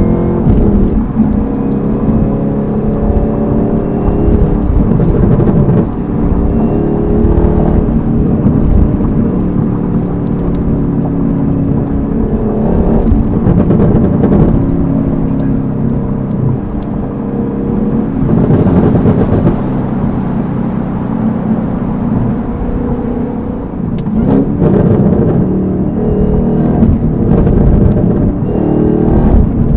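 Chevrolet Camaro ZL1's supercharged 6.2-litre V8, fitted with a cold air intake and an aftermarket cat-back exhaust, running loud while driven, its pitch rising and falling over and over as it accelerates and shifts.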